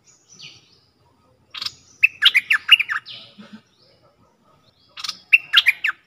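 Bulbul (merbah lekir) singing: two loud phrases of quick, bubbly notes, one about two seconds in and one near the end, after a faint chirp at the start.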